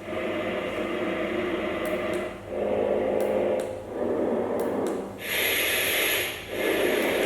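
Sound machine stepping through its built-in noise sounds: a series of steady hisses, each with a different tone, changing every second or so with brief gaps between them.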